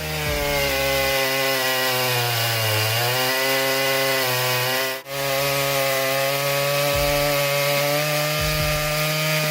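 Large gas chainsaw running at high revs while cutting through wood. Its engine note sags about two to three seconds in as the chain loads up in the cut, then recovers and holds steady. The sound breaks off for an instant about halfway through.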